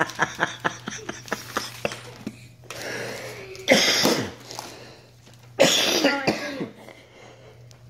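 Gift-wrapping paper crackling as it is handled, then torn off a present in two sudden loud rips, the second lasting about a second.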